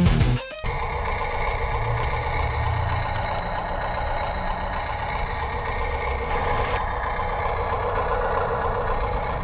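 Toy-grade RC bulldozer running: a steady mechanical hum of several held tones that starts about half a second in. A high hiss drops away near the end.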